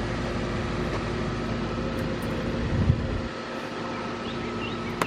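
Outdoor ambience of a steady mechanical hum over a low rumble that eases about three seconds in, with a thump just before. A few faint bird chirps come near the end.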